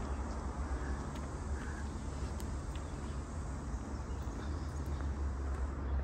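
Outdoor ambience on a wooded trail: a steady low rumble with a few faint, scattered ticks.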